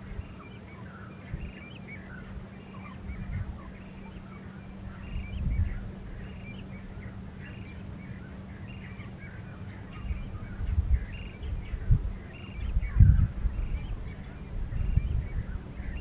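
Wind gusting on the microphone in irregular low rumbles, stronger in the second half, over many birds chirping steadily in the background, with a faint steady low hum.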